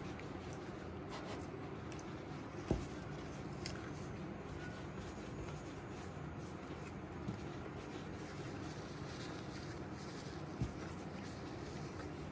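Hands rolling glutinous-rice twisted-doughnut dough into a long rope on a floured tabletop: a soft, steady rubbing. Two brief knocks come about three and about ten seconds in.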